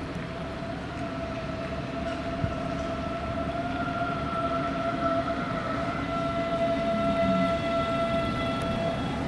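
A train at the platform, its low rumble growing louder under a steady high-pitched whine that stops near the end.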